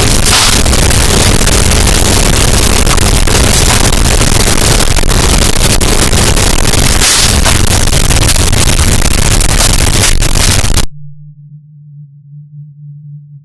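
Fireplace crackle amplified into extreme distortion: a harsh, clipped wall of noise at full loudness. Near the end it cuts off abruptly to a quiet, steady low hum, the fire sound passed through a resonant filter.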